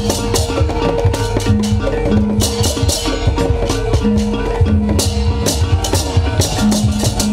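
Traditional street-parade percussion music: a stick-beaten drum and small struck kettle gongs playing a steady beat, with a sustained metallic ringing tone over the strikes.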